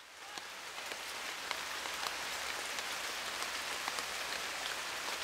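Steady rain falling on broad banana leaves, a continuous hiss with scattered sharp ticks of single drops; it fades in over the first second.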